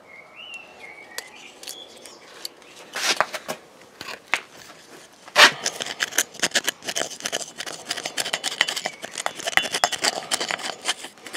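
A stiff old vacuum-cleaner brush dabbing and scrubbing thick black paint onto a steel plate and bar, giving a run of scratchy, clicking strokes. The strokes are sparse at first, with a sharp knock a little past the middle, then come quick and busy.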